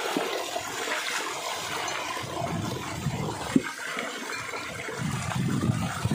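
Water gushing and running in a shallow stream, with splashing as a large aluminium pot is filled and rubbed out by hand in the flow. A single sharp knock about three and a half seconds in.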